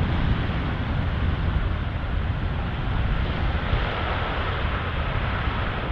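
Airbus A380 rolling on a wet runway: a steady jet roar with the hiss of water spray from its tyres, over a heavy low rumble of wind on the microphone.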